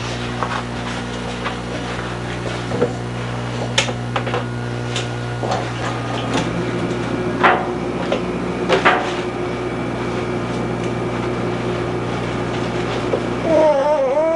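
Scattered light knocks and taps of a baby handling a toy on a high-chair tray, over a steady low hum.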